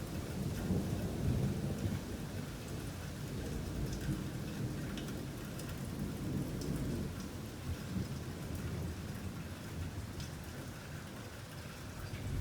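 Thunder rumbling low and long over steady rain, with scattered sharp raindrop ticks; the rumble eases near the end.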